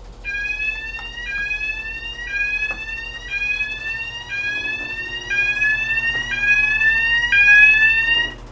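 Electronic alarm on the emergency generator's control system, set off by changing over its starter batteries: a two-tone whoop that rises and snaps back about once a second, eight times, then stops just before the end when it is silenced.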